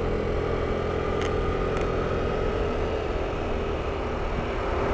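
Motorbike engine running steadily at cruising speed, with an even wind and road rumble.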